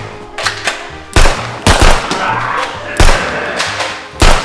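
About six sharp, loud gunshot-like bangs at irregular spacing over background music with a steady bass line.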